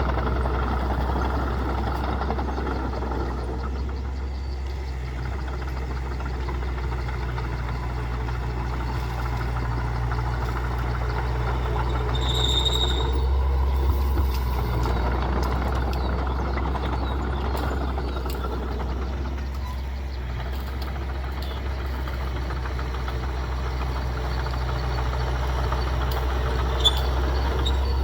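Heavy diesel earthmoving machinery running steadily under load, the engine note swelling and easing, with a brief high squeal about halfway through and a sharp click near the end.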